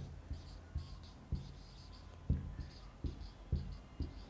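Marker pen writing on a whiteboard: faint squeaks of the felt tip with soft, irregular knocks as strokes are made.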